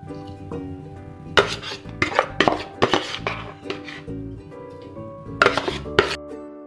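A metal ladle clinks and scrapes against a metal cooking pot as fried chicken pieces are scooped into curry gravy: a cluster of sharp clinks about a second and a half in, and a few more near the end. Background music plays under it.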